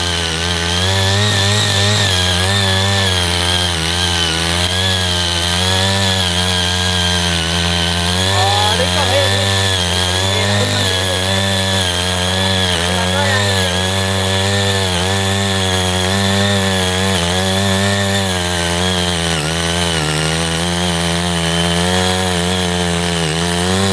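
Small engine of a CY80 walking power tiller running at working speed while ridging soil, its pitch dipping and recovering every second or two as the load changes.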